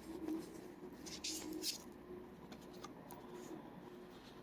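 Tarot cards being handled and laid down: a few soft, brief rustles and slides of card stock in the first two seconds, then quieter, over a faint steady hum.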